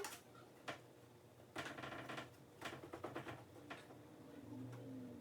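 Light plastic clicks and taps at irregular intervals from handling a lotion bottle while getting lotion out.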